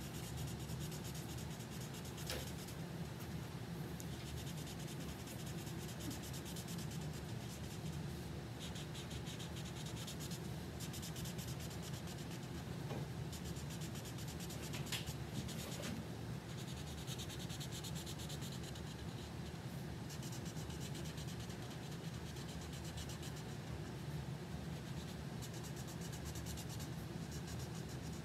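Felt-tip marker scratching across paper in repeated coloring-in strokes, over a steady low hum, with a couple of light ticks.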